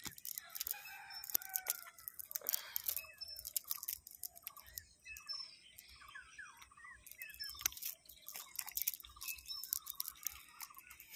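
Chickens clucking and calling in short repeated phrases, over crackling and rustling of a wet nylon cast net being handled while fish are picked out of it.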